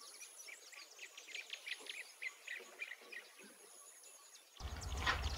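Birds chirping, a quiet run of short, quick chirps over a faint steady high tone. Near the end it cuts abruptly to a steady low rumble of background noise.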